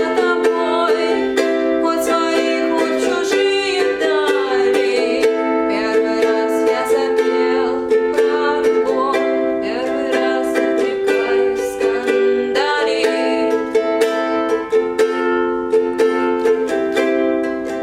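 A female solo singer with a plucked-string accompaniment, sounding like guitar or ukulele, over sustained chords. The accompaniment carries on throughout, and the voice comes in with held, wavering notes at moments.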